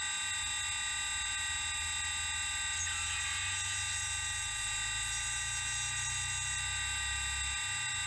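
Metal lathe spindle running with a steady high-pitched whine made of several held tones over a low hum, while a tapping drill in the tailstock chuck cuts into the end of a spinning bolt, adding a faint hiss from about three seconds in.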